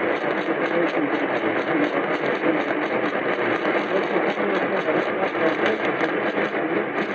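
Radio receiver putting out a steady wash of static as the broadcast signal breaks up, with a faint rapid ticking on top.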